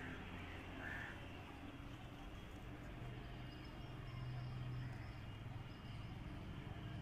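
Faint bird calls: two short calls near the start, then thin high chirps through the middle, over a steady low hum.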